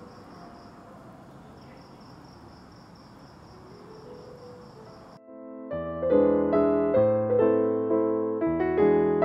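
A faint high, steadily pulsing chirp over a soft hiss, which cuts off about five seconds in; then piano music starts and plays to the end, much louder.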